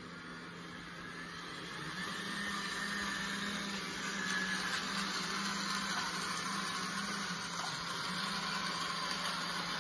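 Small electric motor and gears of a homemade radio-controlled model tractor whirring as it drives and pulls a model square baler; the hum steps up in pitch and gets louder about two seconds in as it speeds up.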